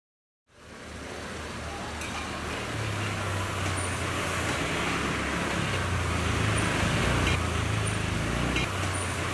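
City street traffic ambience fading in about half a second in: a steady hum of passing vehicles and engines, with a few faint high chirps now and then.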